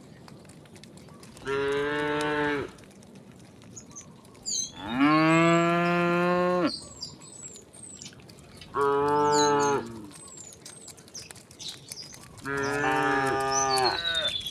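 Cattle mooing: four separate long, low calls, the second, about five seconds in, the longest and loudest.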